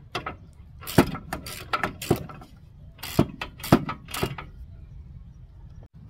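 Irregular metallic clicks and clanks of a wrench and socket working on a car's front brake caliper bolts, about a dozen sharp strokes in small groups between about one and four and a half seconds in.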